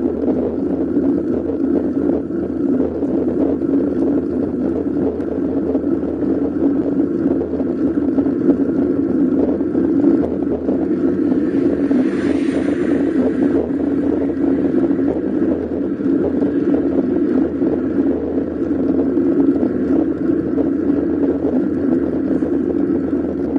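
Steady wind noise on the camera's microphone from riding a bicycle along the road. About twelve seconds in, a brief hiss swells and fades.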